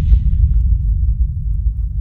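Deep, low cinematic rumble: the tail of a heavy boom hit in the soundtrack, fading slowly, its higher hiss dying away within the first half second.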